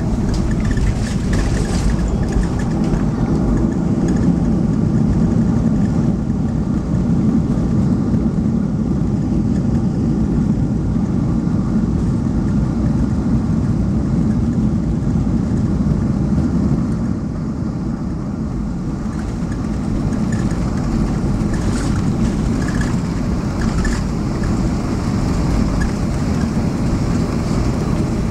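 Cabin noise of a Boeing 737-200 on final approach with flaps extended: a steady, deep rumble of its Pratt & Whitney JT8D turbofans and the airflow over the airframe. It eases slightly about two-thirds of the way through.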